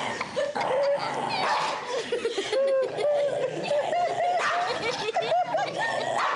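A dog vocalising in a string of short, whiny growls that rise and fall in pitch as it snaps and bites at its own hind leg.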